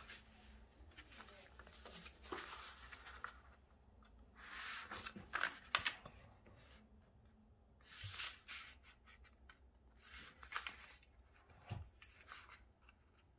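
A sheet of white paper being handled and folded on a hard floor: several short bursts of rustling and crinkling as it is turned over, creased and pressed flat.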